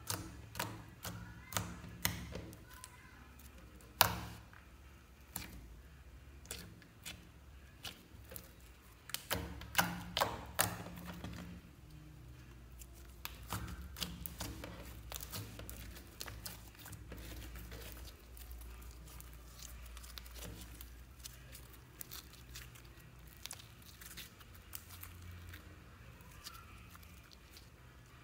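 Hands squeezing, pressing and kneading a thick white slime: irregular wet, sticky clicks and pops as the slime is squashed and pulled apart. The clicks come thickest in the first dozen seconds, with the loudest around four seconds in and between nine and eleven seconds in, then thin out to scattered soft pops.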